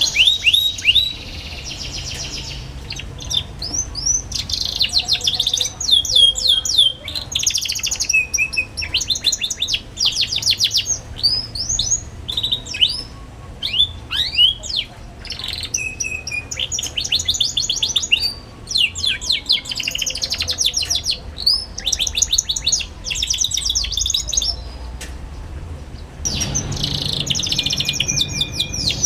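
Young domestic canary singing a fast twittering song: rapid runs of high chirps and quick falling notes, broken by short pauses.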